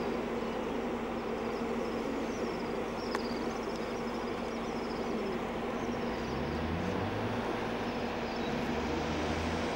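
Outdoor city ambience: a steady rumble of traffic with small birds chirping in short high runs. About six seconds in, a low engine hum joins.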